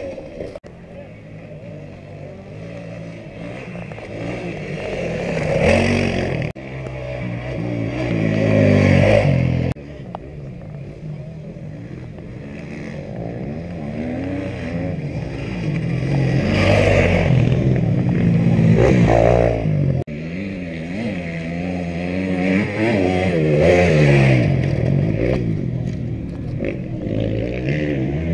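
Off-road rally motorcycles passing one after another on a dirt track, each engine revving hard, its note rising as it nears and falling away as it goes. The sound breaks off suddenly between passes.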